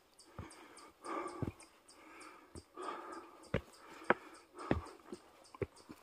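Heavy, rhythmic breathing of an exhausted hiker climbing stone steps, a breath about once a second, with several sharp footfalls knocking on the stones.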